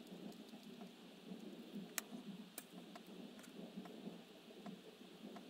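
Faint handling sounds as cotton wadding is packed into a lighter's fuel chamber with a metal pick: soft rustling with scattered small clicks, and a sharper click about two seconds in.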